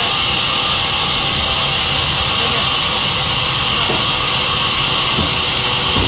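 Sawmill saw machine running with a steady, loud, high-pitched hiss and whir.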